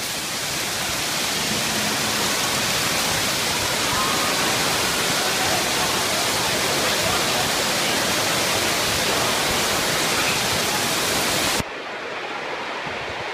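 Hailstorm: a dense, steady roar of hail and heavy rain pouring down. Near the end it cuts abruptly to a quieter, duller roar.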